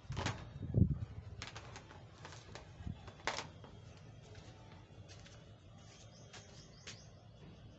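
Pressure washer's power cord dropped onto a concrete floor: a thump about a second in, then a few light clicks and rustles as the cord settles.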